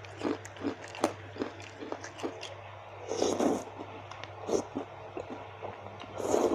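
Close-miked mukbang eating of spicy baso aci: chewing with small wet mouth clicks, and two longer, louder noisy sounds, one about three seconds in and one near the end.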